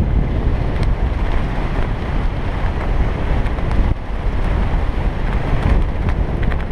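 Steady, loud wind rushing over a helmet-mounted camera's microphone from the airflow of flying under an open parachute canopy, heaviest in the low rumble.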